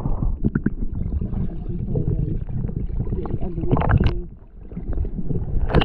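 Muffled sea water sloshing and gurgling around a camera held at or just under the surface. Two sharper splashes come, one about four seconds in and one near the end.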